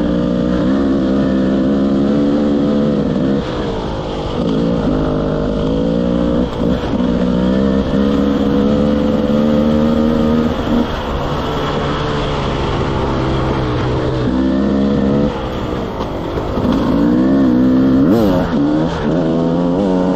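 Enduro motorcycle engine ridden hard, revving up and down with the throttle. The pitch climbs and falls, and it cuts back briefly several times before picking up again.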